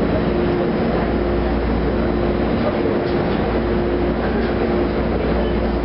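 TTC H6 subway car running through a tunnel, heard from inside the car: a steady rumble of wheels and running gear with a steady hum that breaks off now and then.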